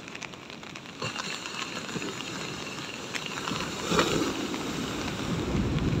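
Heavy surf breaking against a concrete tetrapod breakwater: a steady wash of foaming water with a loud crash about four seconds in, then a heavier, deeper rush of water near the end.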